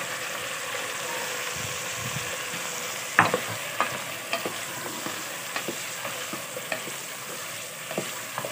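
Raw chicken pieces sizzling in hot oil with ginger-garlic paste in a nonstick pot. From about three seconds in, a plastic spoon stirring them knocks against the pot several times; the first knock is the loudest.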